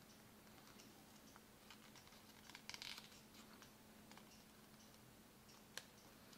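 Near silence with faint rustling and crinkling of origami paper being creased and handled by fingers, with a short burst of crackle a little before the middle and a single sharp click near the end.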